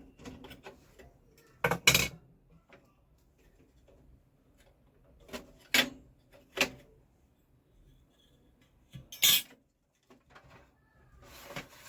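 Scattered sharp metallic clinks and knocks of a screwdriver and screws as the rear metal plate of a laser printer is unscrewed and handled, with a rustle of handling near the end.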